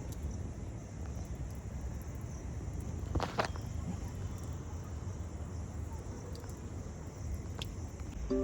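Outdoor ambience: a steady high insect drone over a low rumble of wind on the microphone, with a short rustle about three seconds in and a fainter click near the end.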